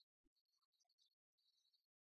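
Near silence, broken only by very faint, scattered ticks.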